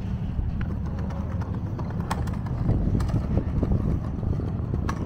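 Skateboards on stone paving: sharp wooden clacks of boards striking the slabs, a few about two and three seconds in and again near the end, over a steady low rumble.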